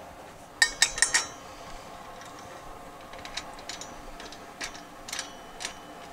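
Stainless steel lid of a Mile Hi 8-gallon Dual Purpose Pro pot still clinking against the boiler as the lid with its copper column is seated and fastened: a quick run of four sharp, ringing metallic clinks about half a second in, then lighter scattered clicks and taps.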